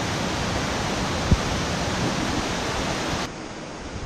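Rushing water: a steady hiss of flowing water, with one short low thump about a second in. The sound cuts off suddenly a little after three seconds in.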